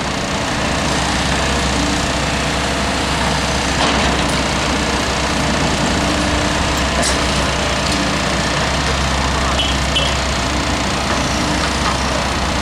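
Excavator engine running steadily, a constant low drone with noise over it and a few faint knocks.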